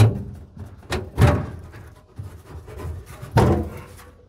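Several heavy thunks and knocks, spread unevenly, from a compartment door or lid on the truck's body being handled and opened.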